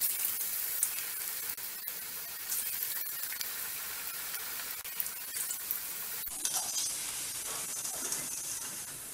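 Onion bondas deep-frying in hot oil in a steel kadai: a steady sizzle of bubbling oil, with a brief break about six seconds in.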